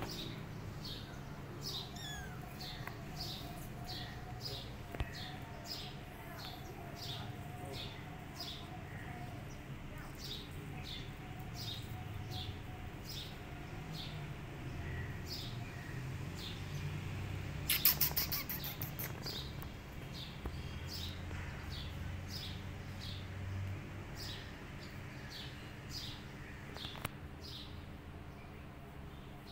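A small bird chirping over and over, one short high chirp a little more than once a second, with a brief rapid trill about two-thirds of the way through.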